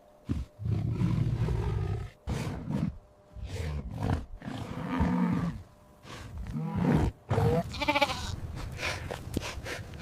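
A big cat gives several low, rough growling roars, then a sheep bleats with a wavering call in the last few seconds.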